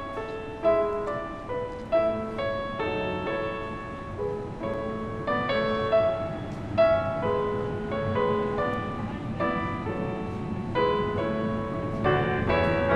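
Background piano music: a melody of single notes over light chords.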